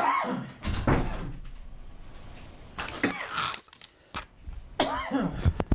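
A man coughing and clearing his throat several times in short, sudden bursts.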